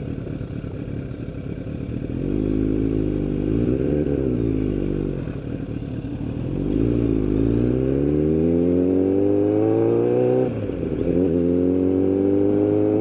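Sport motorcycle engine pulling away and accelerating through the gears: after a steady low rumble the revs climb about two seconds in, fall back at a gear change around the middle, climb again, and drop at a second upshift near the end before rising once more.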